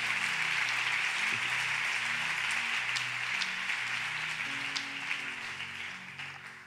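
Congregation applauding, thinning out over the last second or two, over soft background music of sustained chords.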